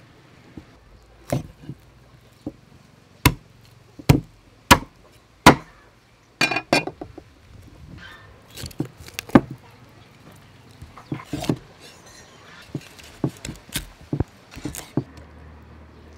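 Meat cleaver chopping up a cooked whole duck on a thick round wooden chopping block: a string of sharp, irregular chops, the loudest a run of four under a second apart a few seconds in.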